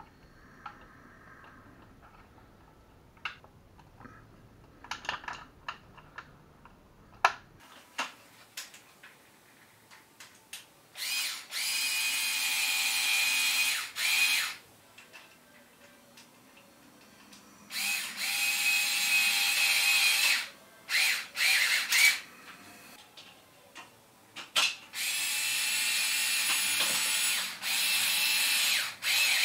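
Cordless drill-driver running in three steady runs of about three seconds each, with a few short bursts between them, pressed against a ceiling lamp's metal mounting plate to fix it to the ceiling. Scattered clicks and taps of handling come before the first run.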